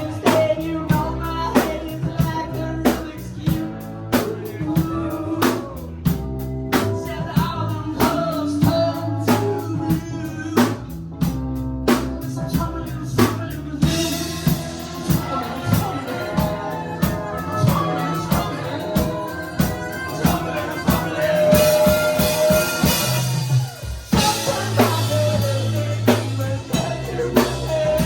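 Live rock band playing with a drum kit keeping a steady beat over bass and other instruments, without sung words.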